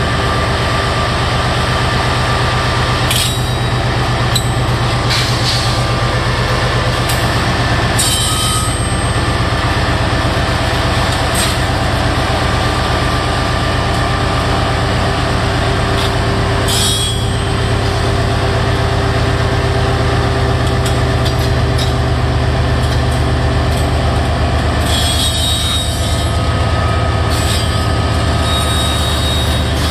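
GE ES44C4 diesel locomotive creeping past at close range, its V12 diesel engine running with a steady low drone. Scattered knocks and brief high-pitched squeals come through now and then, several of them in the last few seconds.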